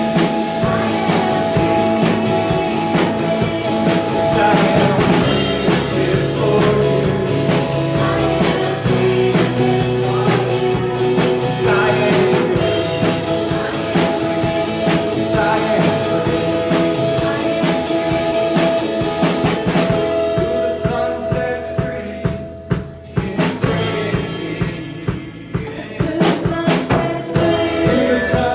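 Church worship band playing a praise song, with singing over a drum kit and other instruments. The music thins out and gets quieter for a few seconds about two-thirds of the way through, then builds back up near the end.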